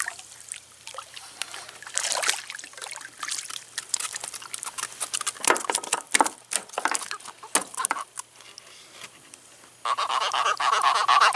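Hooked catfish splashing and thrashing at the water's surface as it is played, netted and lifted out, a string of separate splashes. Near the end, a steady higher-pitched sound lasting over a second.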